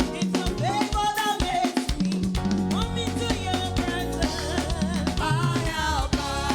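Praise-and-worship music with a steady drum-kit beat of bass drum and snare, a bass line and a melody that bends and wavers in pitch.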